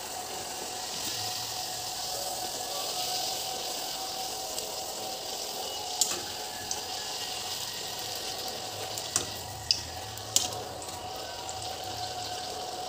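Hot oil sizzling steadily around a round of flatbread dough frying in a small pan, with a few sharp clicks of a metal spatula against the pan in the middle.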